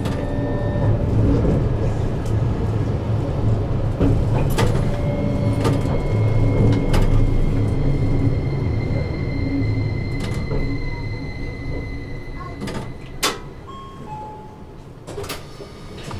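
Toyohashi Railway T1000 'Hottram' low-floor tram running on street track, heard from inside the cab: a steady low rumble of wheels and running gear with a thin whine and a few sharp knocks. The rumble fades over the last few seconds as the tram slows almost to a stop.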